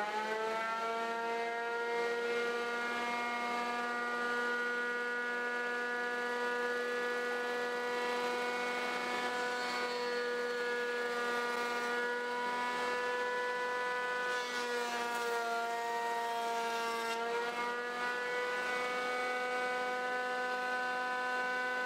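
Jet JJP-8BT jointer/planer's 13-amp motor and 9000 rpm cutterhead running at speed with a steady high whine, taking a shallow cut as a board is fed over the knives. The pitch sags briefly a couple of times in the second half as the cutterhead takes the load.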